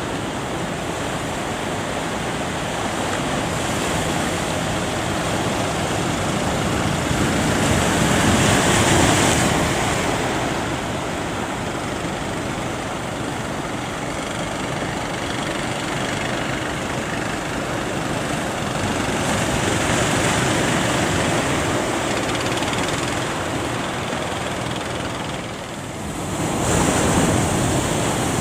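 Heavy surf breaking at a river-mouth sandbar, a steady rush of waves that swells as bigger breakers crash about eight seconds in and again near the end, with wind buffeting the microphone.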